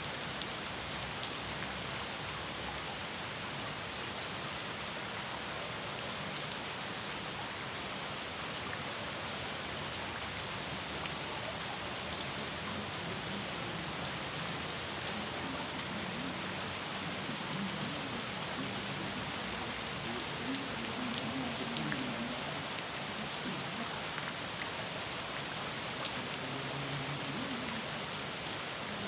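Steady rain falling on a pond, an even hiss with scattered sharper drop ticks.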